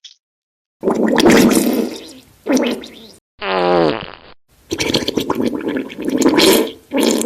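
A run of fart sound effects. Two noisy, sputtering farts come first, then a short pitched fart whose tone falls, about three and a half seconds in. A longer rapid sputtering series of farts follows.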